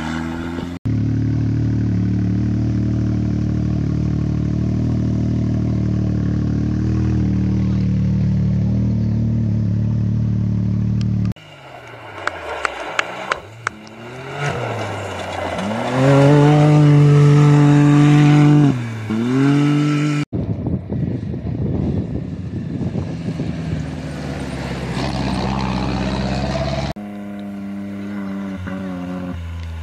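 Rally-raid competition vehicles, a four-wheel-drive rally car and side-by-side buggies, racing on gravel, heard in several shots cut abruptly one to the next. First comes a long steady engine note, then an engine revving up and down through the gears with a loud burst in the middle, then a noisier stretch without a clear engine pitch, and another steady engine note near the end.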